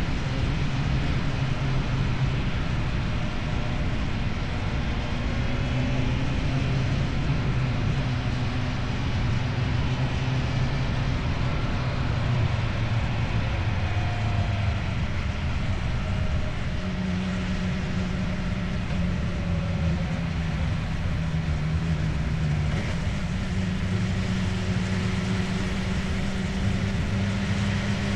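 Motorcycle with an Akrapovic aftermarket exhaust running steadily under way, over a steady rush of wind and road noise. The engine note steps up in pitch about two-thirds of the way through, as the revs rise.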